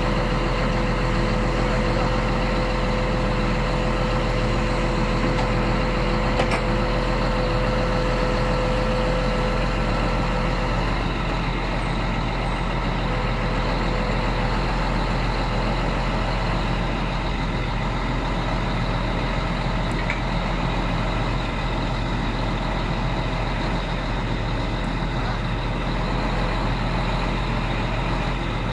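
Crane truck's engine running steadily at constant speed while the crane works a load, with a steady higher whine over it for the first ten seconds or so.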